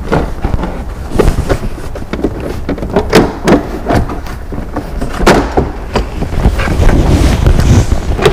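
A plastic interior trim cover in a C5 Corvette's rear cargo area being worked off its two clips by hand, giving irregular clicks, knocks and creaks of hard plastic over a steady low rumble.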